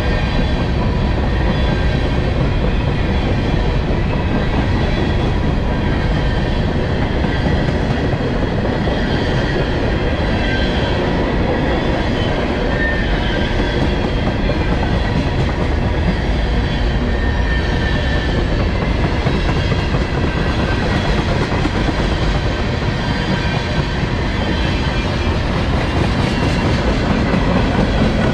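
Freight cars of a CSX manifest train rolling past: a steady rumble and clatter of steel wheels on the rails, with faint high ringing tones through it.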